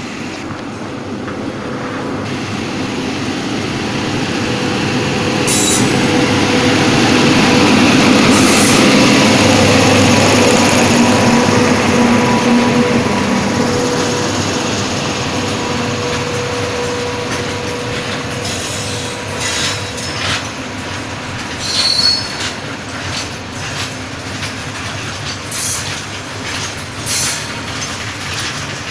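Electric locomotive hauling a freight train of open steel BOXN wagons passing close by: a steady rumble with a humming whine that builds to its loudest about eight to ten seconds in as the locomotive goes by. Then the wagons roll past with an even rumble and a run of sharp knocks from the wheels.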